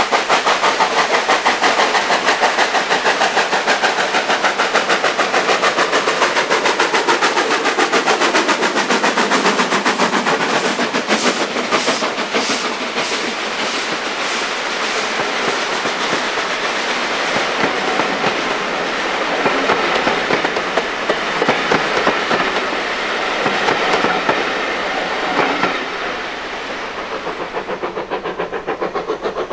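A steam-hauled train running past. A rapid pulsing exhaust is heard at first, then the wheels click evenly over the rail joints. The sound falls away near the end.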